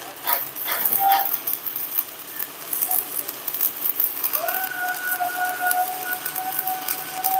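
Stick-welding arc crackling and sizzling steadily as a 1/8-inch E7018 electrode lays a bead on a cracked rear axle housing. A few short barks sound near the start, and about four seconds in a steady whine-like tone sets in and holds.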